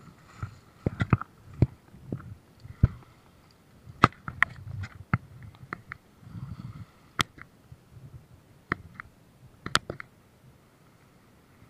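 Beach pebbles clicking and knocking together in irregular sharp taps, a dozen or so scattered through a few seconds, over a low rumble.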